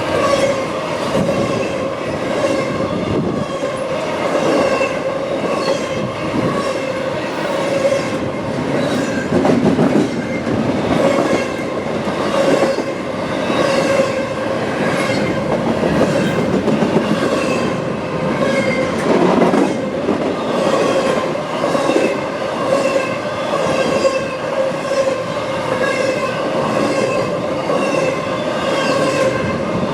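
A CSX intermodal freight train rolling past, its wheels clicking rhythmically over the rail joints about one to two times a second. Under the clicks runs a steady ringing squeal from the wheels on the rail.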